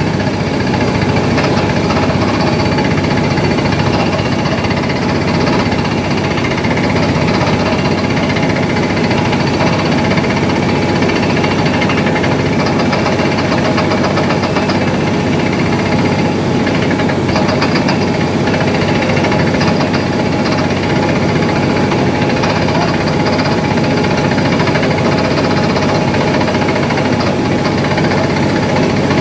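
Truck-mounted borehole drilling rig starting a new hole with compressed-air percussion drilling. Its engine runs steadily under load beneath a rapid, continuous hammering from the drill, while air blows dust and cuttings out of the hole.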